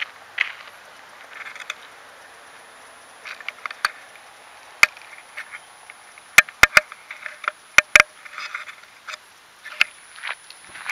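Footsteps crunching on dry ground come near, with scattered sharp clicks, the loudest a cluster in the middle. No motors are running: the quadcopter is down.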